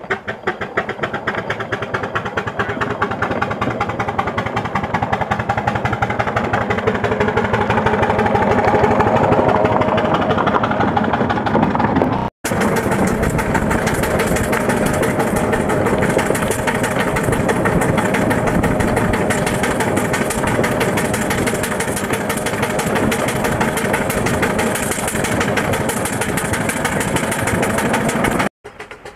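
4-inch-scale Fowler live-steam traction engine under way: its exhaust beats rapidly and evenly up the chimney. It grows louder over the first several seconds as the engine pulls away, then runs steadily.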